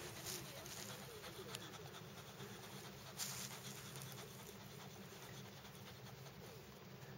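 A dog panting faintly close up, with a few soft clicks, the loudest about three seconds in.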